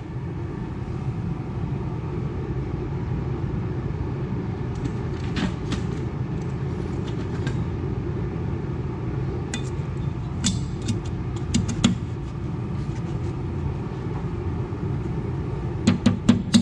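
Steady low rumble of shop background noise with a few scattered metal clinks as hub parts are handled; near the end, quick sharp taps of a mallet on the hub and its tapered roller bearing begin.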